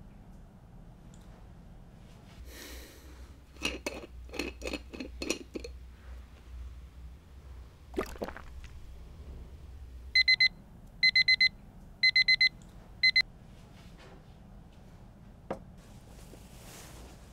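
An electronic alarm beeping loudly in quick groups of four short high beeps, a group about every second, stopping after about three seconds. Earlier comes a quick run of about six clicks.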